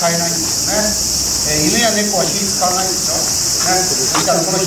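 A loud, steady chorus of summer insects, shrill and high-pitched without a break, with people's voices chattering underneath.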